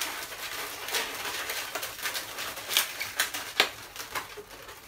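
Latex modelling balloons rubbing against each other as a long black balloon is twisted and tied onto a balloon sculpture, with a few short sharp squeaks around the middle.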